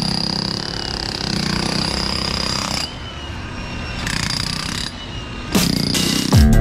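Handheld demolition hammer hammering rapidly into concrete, with a steady high whine. It cuts off about three seconds in, picks up again briefly, and stops; music comes in near the end.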